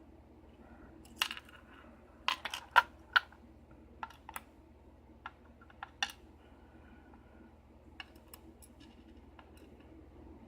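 Small metal clicks and taps, a quick cluster about two to three seconds in and then scattered single ticks: the pins of a Schlage-style KIK lock cylinder being worked out as the lock is taken apart.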